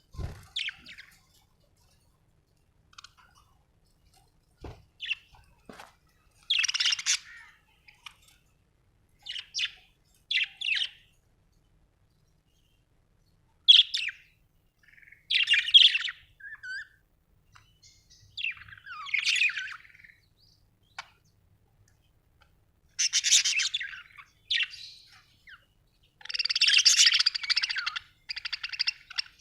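Budgerigar chirping in short bursts with pauses between them, running into a longer stretch of continuous chatter near the end.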